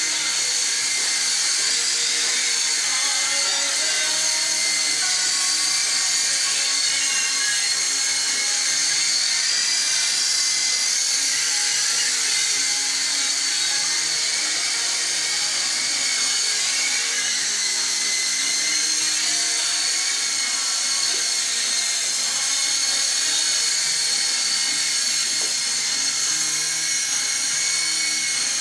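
SYMA S032 radio-controlled toy helicopter in flight: a steady, high-pitched whine from its small electric motors and rotor blades that wavers slightly in pitch as the throttle shifts.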